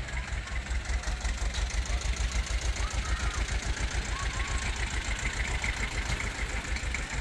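Vintage tractor engine running slowly at low revs, a steady low pulsing of about five or six beats a second.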